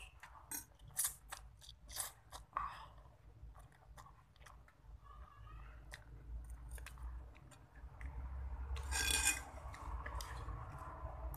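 Close-miked eating: a person chewing spicy Indomie with crushed fried chicken, with many short wet mouth clicks, and a louder noisy burst about nine seconds in.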